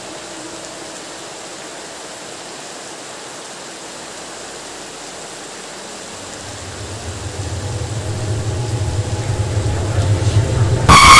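Steady hiss of rain falling in a forest at night. From about six seconds a low rumbling drone swells louder, and just before the end a sudden, very loud high-pitched jumpscare sting cuts in.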